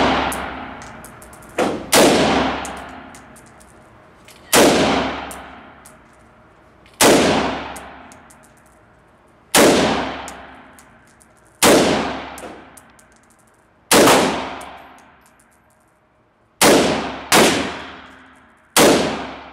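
AR-15 rifle fired in slow, deliberate single shots, about ten of them, roughly one every two to two and a half seconds, with a quicker pair near the end. Each crack rings out in the long echo of an indoor range, and faint high clicks sound between the shots.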